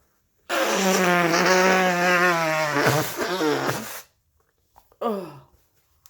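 A congested nose from a heavy cold being blown hard into a tissue: a long, honking blow of about three and a half seconds, with a buzzing pitch over rushing air that sags near the end. About a second later comes a brief sound that falls in pitch.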